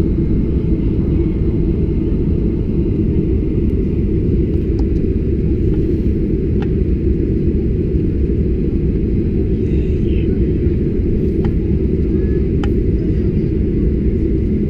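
Steady low rumble inside the cabin of a Boeing 737-800 as it taxis, from its CFM56 engines at taxi power and the wheels rolling on the taxiway, with a few faint clicks.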